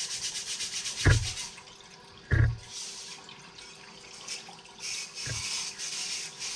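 A piston being scrubbed with a brush in a parts-washer solvent tank: quick rhythmic brushing strokes and solvent sloshing. Two heavy thumps come about one and two seconds in.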